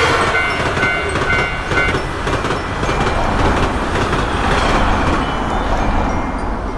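Electric train passing a railroad crossing with a loud, steady rumble of wheels on rails. The crossing's warning bell keeps ringing in even strokes under it for the first two seconds, then is lost in the train noise.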